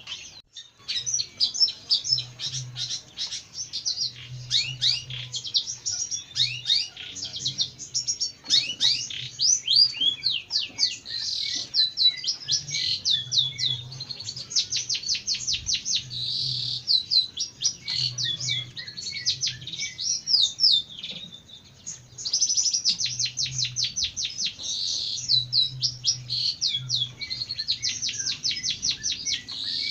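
Long-tailed shrike (jentet) singing a fast, continuous chattering song of rapid, high, sweeping notes, with a short break about three-quarters of the way through.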